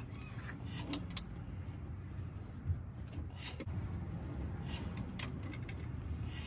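Ratchet on the harmonic balancer bolt turning the crankshaft by hand, with creaking and a few sharp clicks as the stretch-fit serpentine belt is worked onto the pulley.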